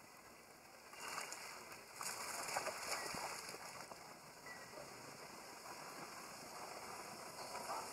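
Monkeys (macaques) splashing and wading in shallow pond water. The splashing starts about a second in, is strongest in the middle and then eases to a lighter slosh.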